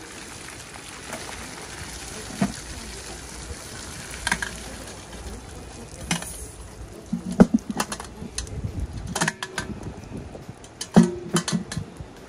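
Seafood boil poured out of a large aluminum pot onto a wooden picnic table: the cooking broth splashes out steadily, then from about seven seconds in come sharp knocks and clinks as the shrimp, corn and potatoes tumble onto the boards and the pot's wire steamer rack is shaken out.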